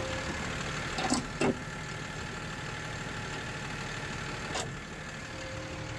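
Yard truck engine idling steadily, with two short knocks about a second in and one brief sharp noise a little past the middle.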